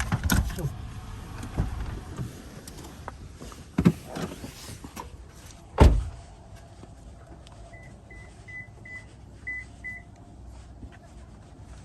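Car being parked: several thumps and knocks, the loudest a single slam about six seconds in, then a quick run of six short high beeps from the car's electronic chime.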